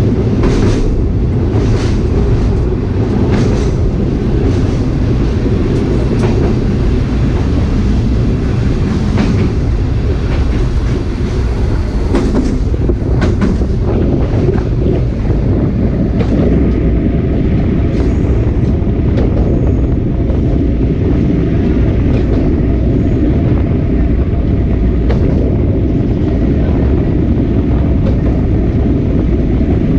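Sightseeing trolley train carriage running along the track: a steady low rumble with many short wheel clicks over the rail joints, the clicks thinning out after about half the time.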